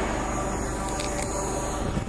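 An engine running steadily, with two short clicks about a second in.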